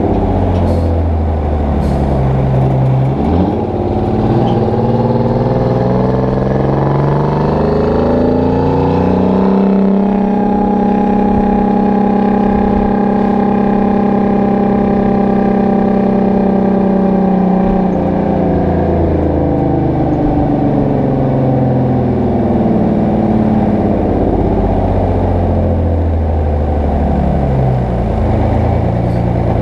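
Detroit Diesel 12V-71 two-stroke V12 in a Kenworth W900A, heard close to its roof-height exhaust stacks. It pulls up in pitch over the first third, holds a steady high note through the middle, then falls away over the last third as the truck slows, settling low near the end.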